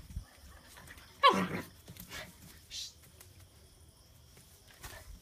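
A puppy barks once about a second in, a short yap that falls in pitch.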